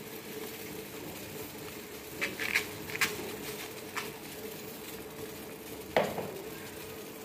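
Sugar syrup boiling in a steel pan, a steady bubbling with a few light clinks against the pan, the loudest near the end. The syrup is still thin and watery and needs more boiling before it turns sticky.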